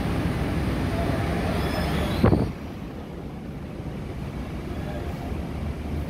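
Steady low rumble aboard a Star Ferry, under a loud rushing noise that cuts off with a sharp thump about two seconds in, leaving the quieter low rumble.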